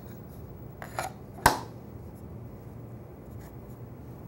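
Light knocks and one sharp click of wood on the saw's metal table as thin wooden gauge strips and the blank are set in place, over a steady low hum.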